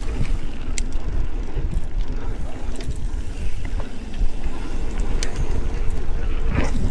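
Steady low wind rumble buffeting the microphone, with a few faint sharp clicks. A heavy breath comes near the end.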